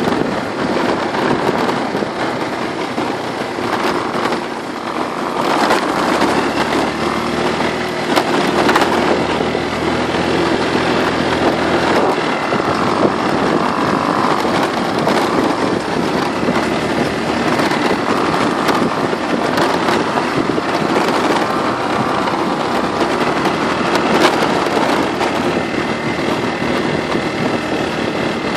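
Motor scooter's engine running under way on a rough dirt track, with steady wind noise on the microphone and crackly knocks from the bumpy ground.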